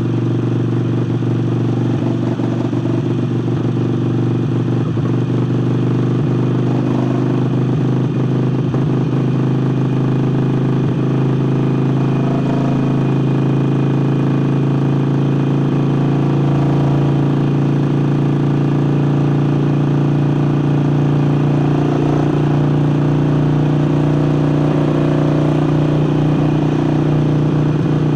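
Harley-Davidson Forty-Eight's air-cooled V-twin, fitted with a new air intake, running under way at a steady cruise. Its pitch climbs slowly through the second half.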